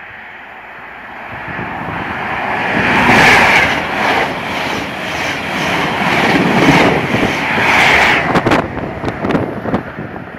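A Class 43 HST diesel express passing through a station at speed. It builds from about a second in to a loud rush with a regular clatter about twice a second while the coaches go by, then dies away into gusty buffeting on the microphone near the end.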